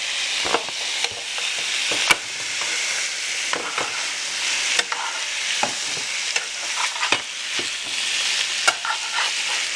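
Sliced sirloin sizzling in butter in a large sauté pan as it is seared, with a steady hiss and irregular clicks and scrapes of a utensil stirring it against the pan.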